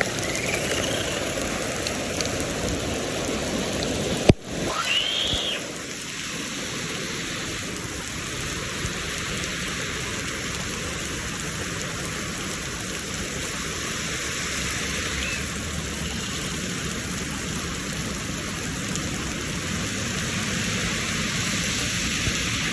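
Steady heavy rain falling, with one sharp click about four seconds in.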